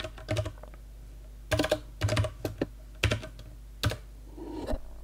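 Typing on a computer keyboard: scattered keystrokes and short quick clusters of clicks as a short command is keyed in, ending with a single stroke of the Enter key a little before four seconds in.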